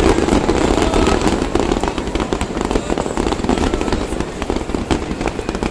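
Aerial fireworks bursting in quick succession: a dense, continuous run of bangs and crackles.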